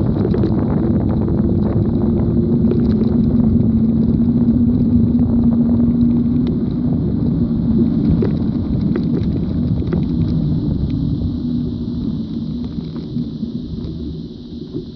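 Steady low rumble of road noise from moving along an asphalt street, with a hum and scattered small clicks. It fades over the last few seconds as the motion slows.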